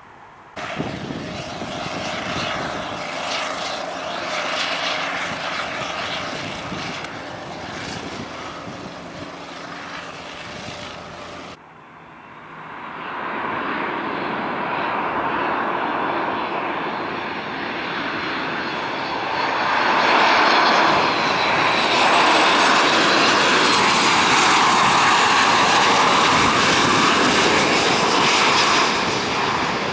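Jet engines of a Southwest Boeing 737 climbing out at takeoff power, cut off abruptly about twelve seconds in. Then a Boeing 737 MAX 8's CFM LEAP-1B engines on landing approach, growing louder as it comes in low and passes close, with a high whine over the engine noise.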